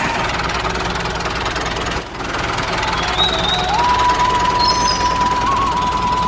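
A DIY mini tractor's small motor running steadily with a rattle. About four seconds in, a thin high steady tone joins it.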